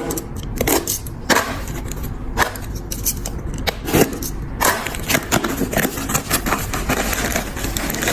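Hands opening a mailed parcel: scattered clicks, knocks and scraping of the packaging and its contents, over a steady low hum.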